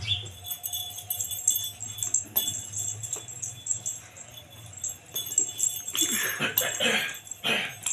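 Bell inside a knobbly rubber dog-toy ball jingling and rattling in quick irregular shakes as it is moved about on a tile floor. A puppy gives a few short, louder vocal sounds near the end.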